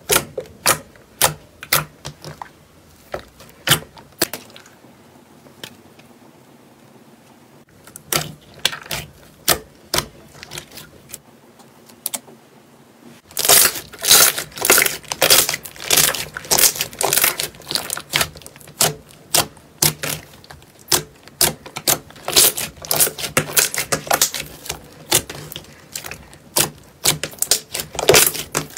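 Hands pressing and kneading a glossy slime, its trapped air pockets popping and clicking irregularly. The pops are sparse at first, with a lull a few seconds in, then come thick and fast from about halfway, as the slime is squeezed and folded.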